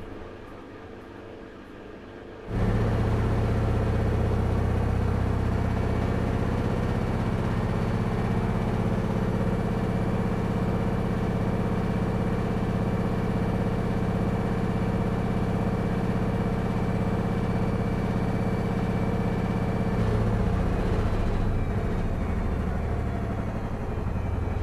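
Front-loading washing machine running with a steady motor hum and a faint high whine, starting suddenly about two seconds in and shifting slightly near the end.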